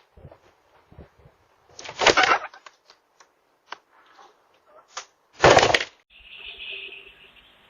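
Two loud crashing bangs about three and a half seconds apart, with small clicks and knocks between them, then a steady faint hiss from about six seconds in.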